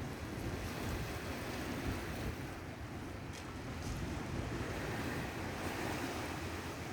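Steady sea wash and wind buffeting the microphone aboard a boat at sea, with a low rumble underneath.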